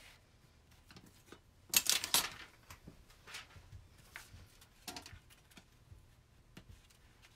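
Hands handling a cloth-covered book case and paper on a wooden table: faint rustling, light taps and scrapes, with a louder rustle about two seconds in.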